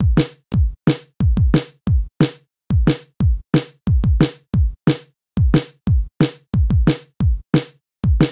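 Electronic background music: a steady drum-machine beat of deep kick drums that drop in pitch, each topped with a sharp hit, with no melody.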